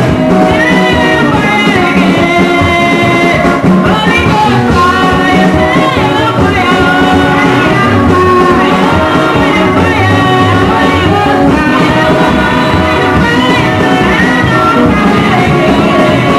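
Loud music with singing, going on steadily without a break.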